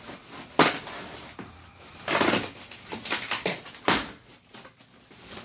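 Plastic packaging crinkling and rustling as wrapped parts are handled in a box, with a couple of sharp knocks, one about half a second in and one near the end.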